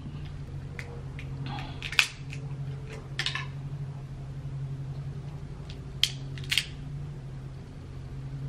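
Cooked Dungeness crab shell cracked and snapped apart by hand, a few sharp cracks about two, three and six seconds in, over a steady low hum.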